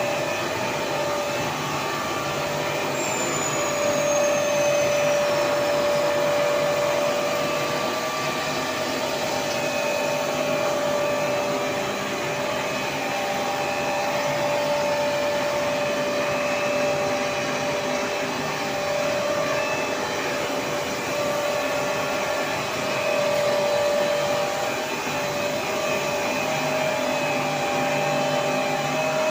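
Five-layer cast stretch film extrusion lines running: a steady mechanical whir of motors and blowers with several held tones, and a faint falling whistle about three seconds in.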